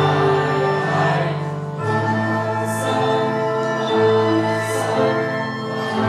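Choir and a female soloist singing a slow song live with a small pit orchestra, held chords over a bass line that moves to a new note about once a second. Three short hissing 's' sounds from the singers come through about three seconds in, near five seconds and near the end.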